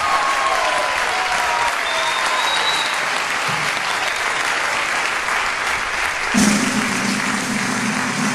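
Audience applauding steadily. About six and a half seconds in, music starts up again under the applause with a steady low note.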